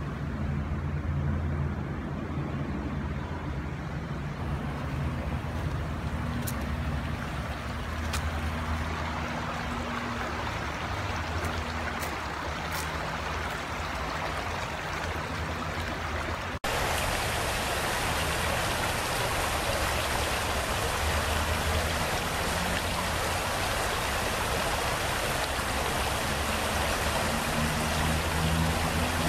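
Shallow stream running over rocks, a steady rushing babble of water with a low rumble underneath. About halfway through, the water sound turns abruptly louder and fuller.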